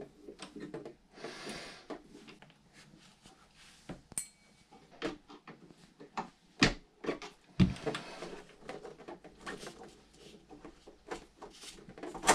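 Scattered light clicks and taps of a small hex driver and metal parts being handled at the stern of an RC boat while the drive shaft's Allen set screw is loosened, with a brief rustle about a second in and a sharper knock past halfway.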